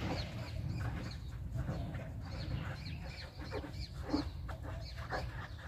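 Birds calling, many short overlapping calls over a steady low rumble.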